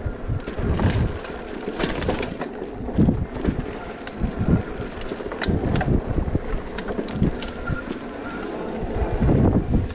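Wind buffeting the microphone on a moving e-bike, gusting unevenly, with scattered sharp clicks and rattles.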